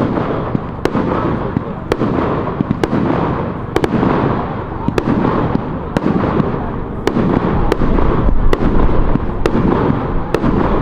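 Fireworks display going off: sharp cracks about once a second over a dense, continuous crackle and rumble.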